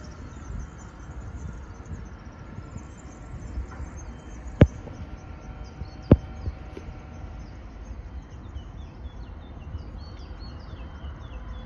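Small birds chirping repeatedly over a steady low outdoor rumble, with two sharp clicks about a second and a half apart near the middle.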